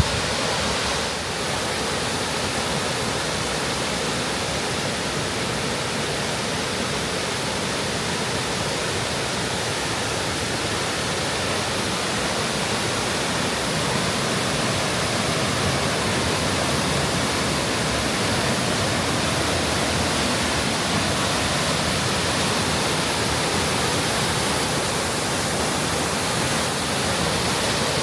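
Large waterfall rushing steadily: a dense, even noise.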